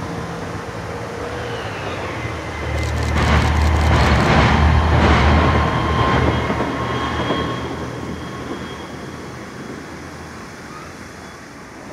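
A vehicle passing unseen: a low rumble that swells about three seconds in, peaks a second or two later and fades away, with a few sharp clicks as it rises.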